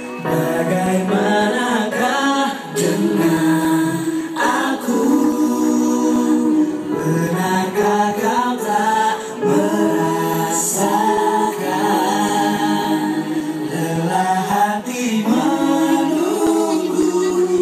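A mixed group of male and female singers sings in harmony into handheld microphones, unaccompanied by instruments.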